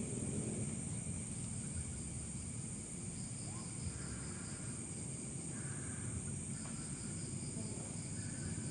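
Insects, crickets among them, chirring steadily in a high continuous trill, with a second pulsing trill that drops out for about a second and comes back, over a low steady rumble.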